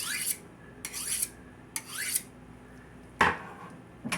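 Kitchen knife blade drawn along a butcher's steel, three quick scraping strokes about a second apart, each with a rising metallic ring, honing the burr on the edge straight. About three seconds in comes a single sharp knock, then a smaller click near the end.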